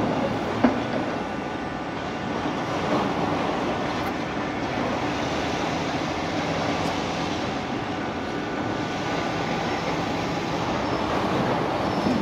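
Steady mechanical rumble of a city street and building site, with a few faint steady tones over it and one sharp click about half a second in.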